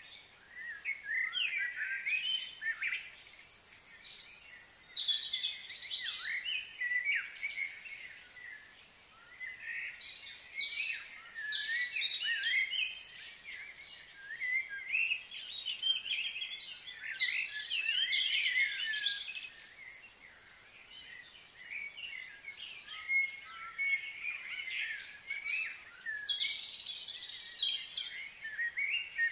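Small birds chirping and twittering in quick, jagged bouts of a few seconds each, with short lulls between, over a faint steady high hiss.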